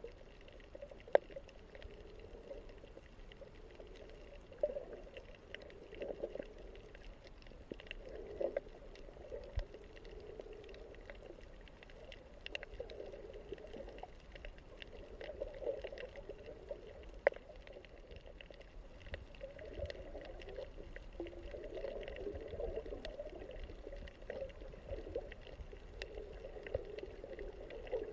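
Muffled underwater ambience: a low watery rushing that swells and fades every few seconds, with scattered sharp clicks throughout.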